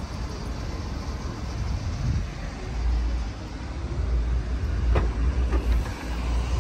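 Uneven low rumble of outdoor air and wind on a handheld microphone, with a sharp click about five seconds in as the hatchback's tailgate is unlatched and opened.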